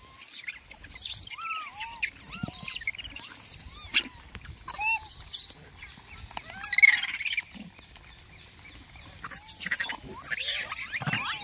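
Monkeys giving many short, arched squeaky calls, scattered irregularly, with brief rustling and clicks between them; the loudest bursts come about seven seconds in and again near the end.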